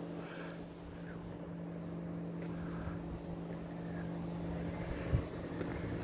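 A car engine running steadily with an even low hum, and one sharp knock about five seconds in.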